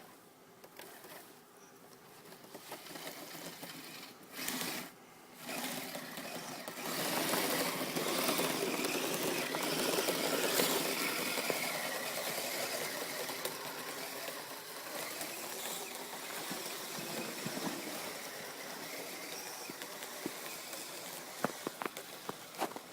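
Kyosho Blizzard SR radio-controlled snowcat running, its electric motor and gearbox whirring. It builds up, cuts out briefly about five seconds in, is loudest around ten seconds, then eases off.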